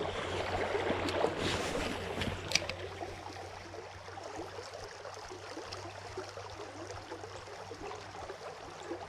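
Small creek's running water, a steady gurgling rush, louder for the first few seconds, with two short sharp clicks in the first three seconds.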